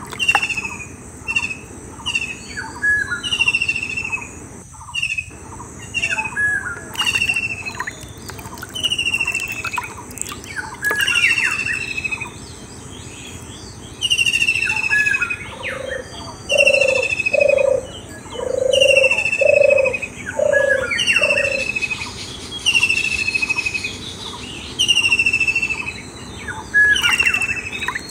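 Birds singing: one bird repeats a short, high, falling whistle about every second and a half among other chirps, and a lower call repeats about six times in the middle.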